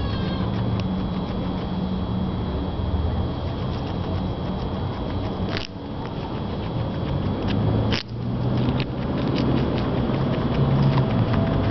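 Guinea pig crunching and chewing raw carrot: many small crisp clicks, with two louder snaps a little past the middle, over a steady low background rumble.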